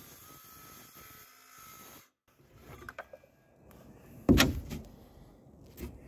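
Building work on a wall opening: a faint steady hum, then small clicks and one loud short knock about four seconds in, with a smaller knock near the end.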